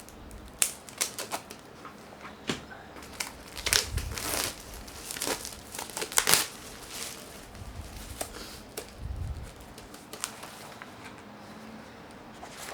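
Wrapping being torn open and crumpled off a new sketchbook: irregular crackles and rustles, busiest in the first seven seconds and then fewer and quieter.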